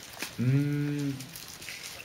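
A man's drawn-out hesitation sound while thinking, held for under a second with its pitch rising a little and falling again.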